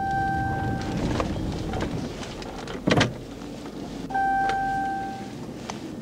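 Two steady electronic beeps inside a pursuing patrol car, each about a second long, one at the start and one about four seconds in, over the car's engine and road noise. A single sharp click comes about three seconds in.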